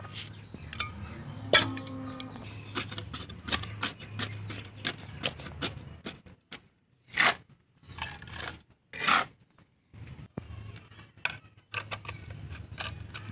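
Hands scooping and pressing potting soil in a metal pot: scattered scrapes, rustles and taps, with a ringing clink against the pot about a second and a half in and two louder scraping rustles around seven and nine seconds in. A low hum runs underneath at times.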